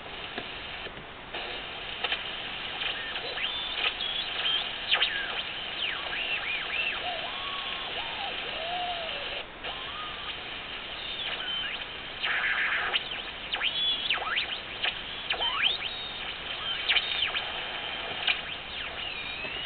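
Ten-Tec 1054 regenerative shortwave receiver being tuned across a band: steady static hiss from its speaker, crossed by many whistles that slide up and down in pitch as the dial sweeps past station carriers. A louder rush of noise comes about two thirds of the way in.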